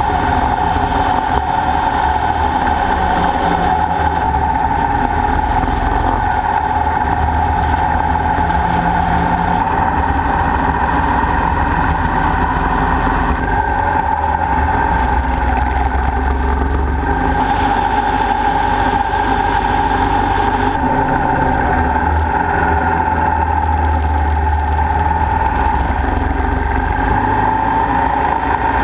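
Motorcycle engine running at a steady cruising speed, heard from on the moving bike as a constant drone with road and wind rush. The sound shifts abruptly a few times where separate riding clips are cut together.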